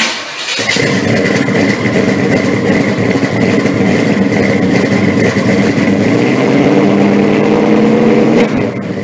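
A car engine running steadily, with a steady high whine above it; the sound stops near the end.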